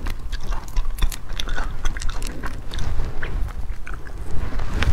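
Close-miked crackling and clicking of a cooked shrimp's shell being peeled apart by hand, with biting and chewing of the shrimp meat.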